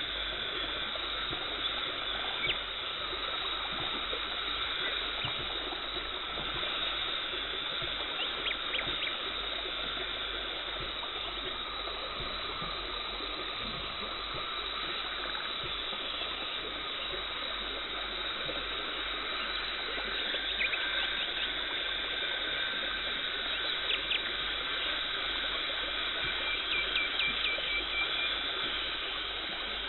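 Dental cleaning equipment running steadily: the hiss and trickle of water spray from the scaler and the suction tube drawing off water, with small clicks and ticks now and then.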